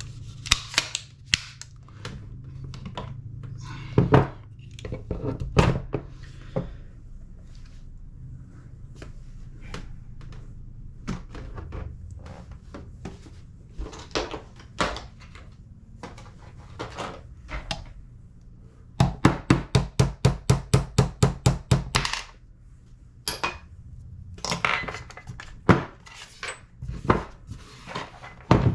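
Hand disassembly of a Tokyo Marui MWS gas blowback airsoft rifle: scattered clicks, knocks and clatter of small metal and plastic parts being handled. About two-thirds of the way in there is a run of about a dozen quick, even taps, some four a second, fitting the tapping out of a receiver pin.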